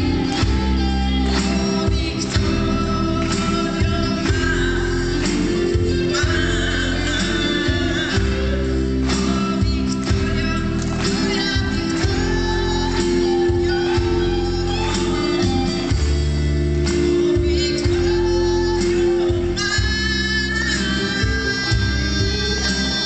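Live band playing a song: a male singer into a microphone over drums, keyboard and electric guitar, with a steady beat.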